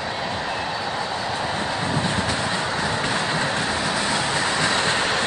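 Freight train of tank cars rolling past: a steady rush and rumble of steel wheels on rail, getting a little louder about two seconds in.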